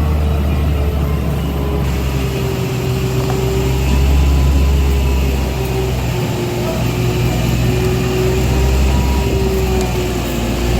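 Heavy diesel truck engine running steadily at the concrete pour, a deep hum under a whining tone that slowly wavers in pitch.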